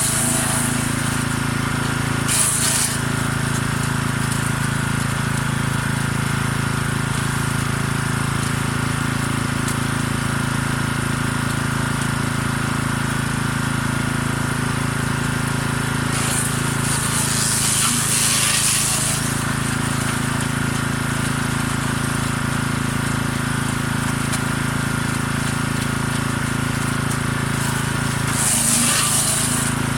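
Forest Master FM6DD small petrol wood chipper running steadily with a 6 hp engine. It breaks into harsher grinding three times, briefly about two seconds in, for a few seconds in the middle and again near the end, as elder cuttings are shredded into woodchip.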